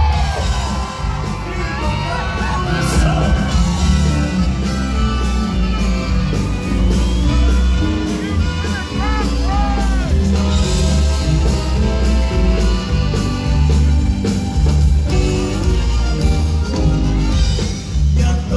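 Live Tejano band playing on stage: bass and drums with keyboards and saxophone, and a man singing over them.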